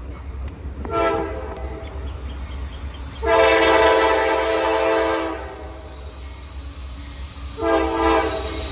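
Norfolk Southern diesel freight locomotive's air horn blowing for a grade crossing: a short blast about a second in, a long blast of about two seconds a little after three seconds, and another short blast near the end, over a low steady rumble.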